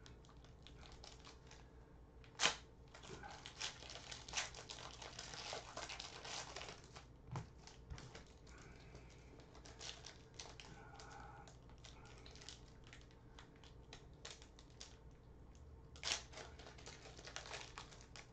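Heat-sealed trading card pack wrappers being torn open and the cards inside handled: faint crinkling and crackling, with a sharp tear about two and a half seconds in and another burst near the end.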